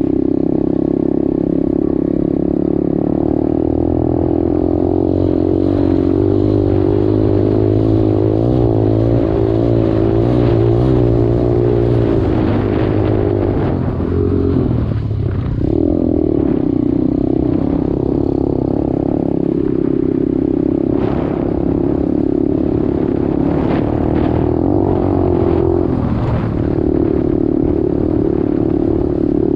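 125cc dirt bike engine running while riding, its pitch wavering with the throttle and dipping briefly about halfway through before picking up again. A few knocks and rattles come through in the second half.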